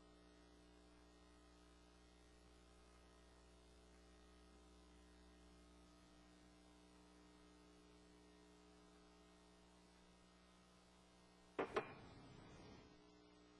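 Near silence with a steady low electrical hum in the audio feed. Near the end, two sharp knocks close together, followed by a brief rustle.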